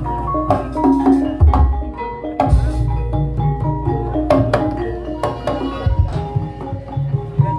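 Ebeg (Banyumasan kuda kepang) accompaniment music: pitched mallet percussion ringing over hand drums, with a strong bass underneath.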